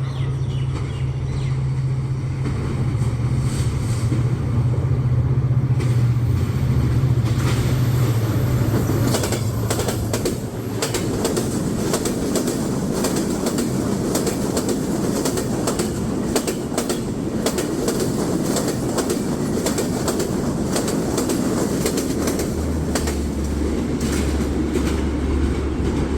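Passenger train running: the ALCO diesel locomotive's engine drones for the first ten seconds or so, then the LHB coaches' wheels clack over the rail joints over a steady rumble, with a deeper engine drone again near the end.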